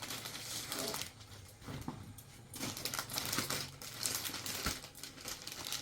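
A gift package being handled and opened: irregular rustling of the packaging with scattered small clicks and taps.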